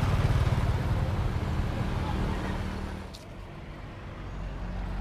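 Small motorbike engine passing on the road, at its loudest around the start and fading away about three seconds in.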